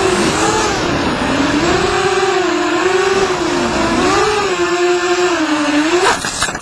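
FPV quadcopter's motors and propellers whining, the pitch dipping and rising again and again as the throttle changes. About six seconds in the pitch climbs sharply, then the sound breaks up into crackling and drops away.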